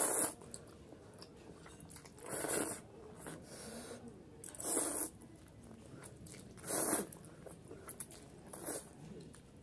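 A person slurping instant noodles off a fork, about five loud, hissy slurps roughly two seconds apart, with softer chewing between them.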